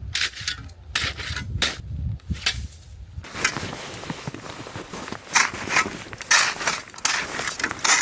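Crunching and rubbing in snow with gear: several sharp crunches in the first three seconds. From about three seconds in, a continuous rubbing rustle takes over, with a few louder swishes.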